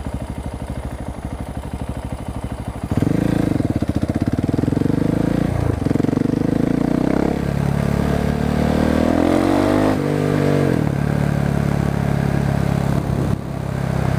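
Husqvarna 701 Supermoto's single-cylinder engine, running an exhaust without its dB killer, pulls hard from low revs about three seconds in. The revs climb, drop sharply at a gear change about ten seconds in, then hold steady.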